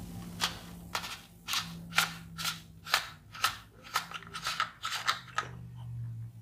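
The plastic end cap at the base of an ARMY BOMB ver. 4 light stick's handle is twisted open to reach the battery compartment. A quick run of sharp plastic clicks, about three a second, stops about five seconds in.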